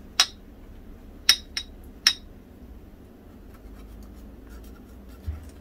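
Sharp metallic clicks and faint scraping as a thin steel rod is worked against a Ford Consul gearbox's top cover to free a tight part: four clicks in the first two seconds, then small ticks and a soft knock near the end.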